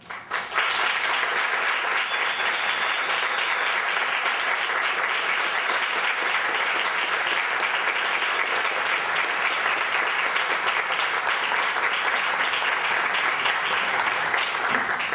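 Audience applauding at the close of a performance: the clapping breaks out suddenly just after the start and holds steady and loud throughout.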